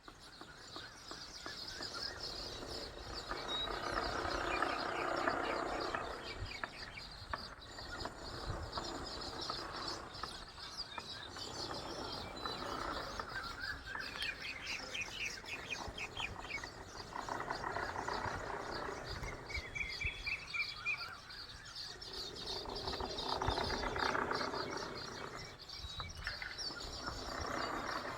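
A flock of birds chirping and calling together in a dense, continuous chorus, with louder, lower calls swelling in and out every few seconds.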